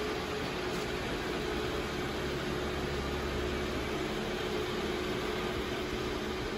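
Steady mechanical hum and hiss with a constant low tone, unchanging throughout.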